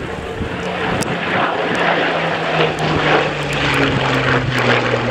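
Hawker Hurricane fighter's Rolls-Royce Merlin V12 engine running during a low pass. It gets louder over the first two seconds, and its pitch falls as the aircraft goes by.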